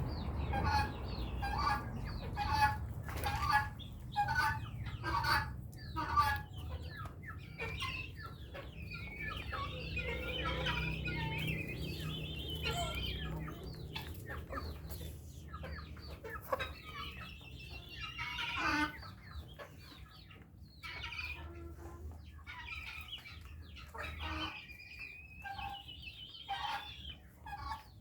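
Chickens clucking: short calls repeated about twice a second at first, then longer drawn-out calls.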